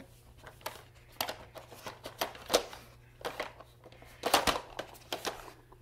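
Plastic dog puzzle toy clicking and clattering as its sliders, lids and pegs are nosed, pawed and pushed: a string of irregular sharp knocks, loudest in a quick cluster about four and a half seconds in.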